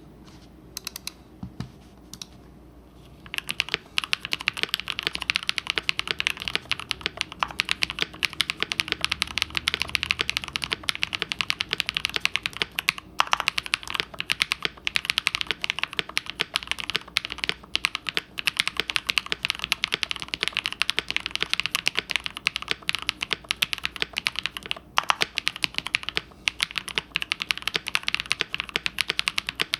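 Typing sound test on a mechanical keyboard with lubed Singularity linear switches, which have aluminium-plated housings and long-pole POM stems. A few isolated key clicks, then from about three seconds in a steady, rapid clatter of keystrokes.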